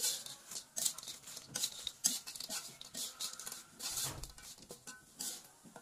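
Crispy potato chips coated in dried chili sambal crunching and rustling as a spatula stirs and tosses them in a wok, in many short irregular crackles. The crunch shows the chips are still very crisp.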